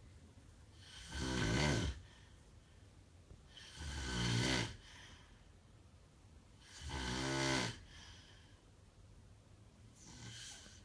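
A sleeping man snoring: four rattling snores about three seconds apart, the last one fainter, with quiet breathing gaps between them.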